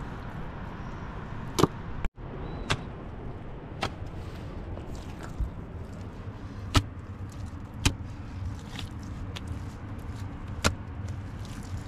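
Handfuls of wet mud slapped and pressed by hand into the gaps of a stone wall, heard as about half a dozen sharp, irregular slaps over a steady low background rush.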